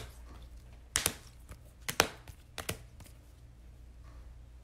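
Trading cards being gathered and sorted by hand, with a series of sharp taps and clacks as they are set down and squared up on a table, mostly in the first three seconds.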